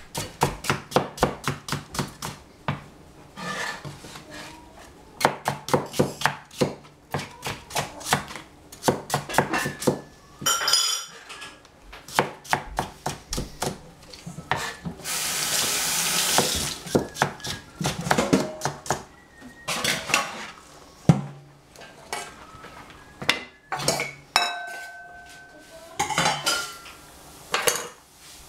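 Chinese cleaver chopping celery stalks on a plastic cutting board, in quick runs of chops with short pauses between them. About halfway through, a few seconds of loud hissing.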